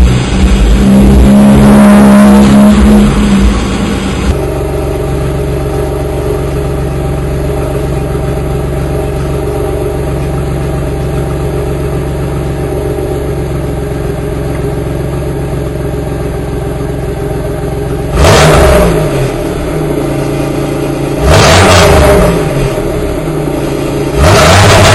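Supercharged 3.8-litre V6 of a 1998 Pontiac Grand Prix GTP, running a smaller 3.4-inch supercharger pulley and a cold air intake, idling steadily after a loud opening few seconds. Near the end it is blipped three times, each rev rising quickly and falling back to idle.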